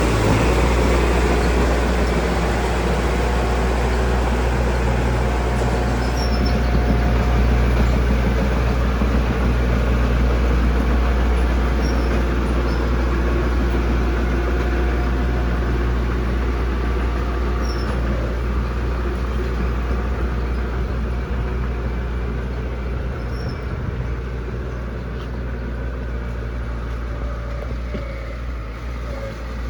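Heavy diesel engine of construction machinery running steadily with a deep drone, growing gradually quieter over the second half.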